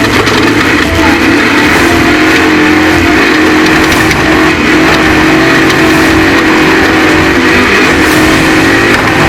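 Off-road race truck engine running hard at high, fairly steady revs, its pitch wavering slightly, over a continuous noisy rush.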